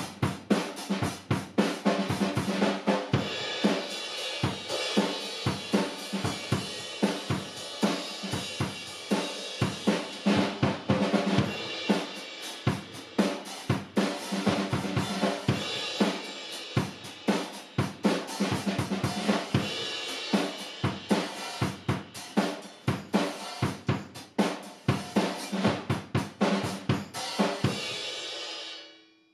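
Acoustic drum kit played with sticks: snare, bass drum, hi-hat and cymbals in a fast, steady groove. It fades out near the end.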